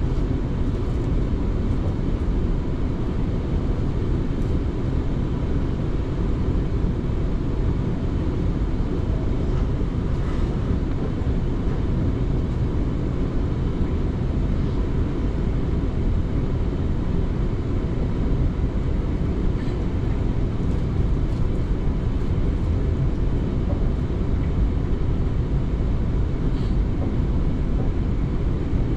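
South Western Railway passenger train running along the line, heard from on board: a steady low rumble of wheels on track, with a few faint clicks.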